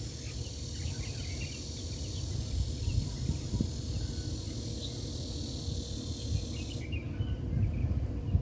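Outdoor garden ambience: a low, uneven rumble under a steady high hiss that cuts off suddenly near the end, with faint scattered chirps.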